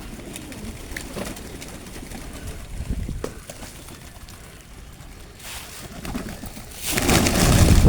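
Pigeons cooing softly, with scattered light clicks. Near the end, loud wind noise on the microphone covers everything.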